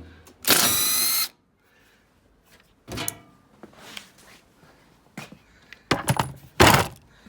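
A power drill runs in one short burst, just under a second, its pitch rising slightly, likely taking a screw out of the welder's casing. A few separate knocks and clunks follow later.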